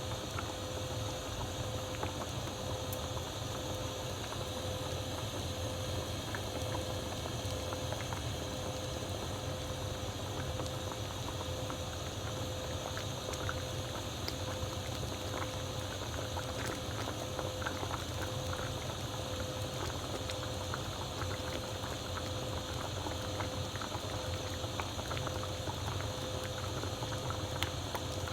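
Japanese hamburg steak patties cooking in a frying pan: a steady sizzle with many fine crackles.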